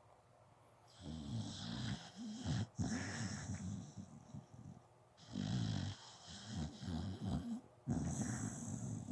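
A sleeping pet snoring in slow, rattling breaths: about three long snores of two to three seconds each, starting about a second in.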